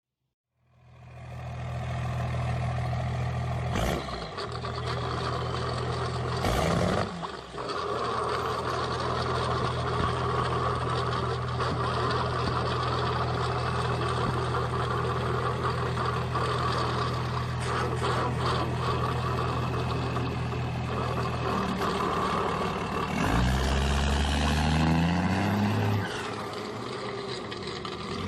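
Volkswagen Worker truck's diesel engine idling steadily, then revved up for about three seconds near the end before dropping back.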